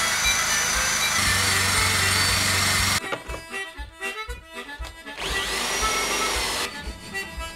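Cordless drill spinning a wire wheel brush against a steel axe head: a loud, even scrubbing hiss over the motor's hum that cuts off sharply about three seconds in. About two seconds later the drill spins up again with a rising whine and runs for about a second and a half with a different wheel on the head. Harmonica music plays underneath throughout.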